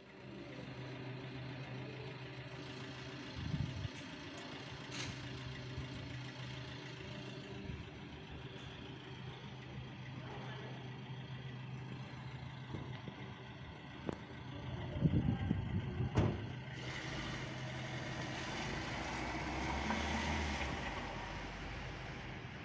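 Outdoor street ambience in snowfall: a steady low engine hum of traffic, a few low thumps a third of the way in and around the middle, and a broad swell of road noise that rises and fades near the end.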